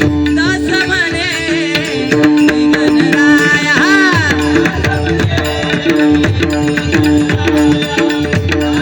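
Devotional bhajan music: a tabla-style hand drum keeps time under a repeating melody, while a singer holds a long, wavering, ornamented note through the first half.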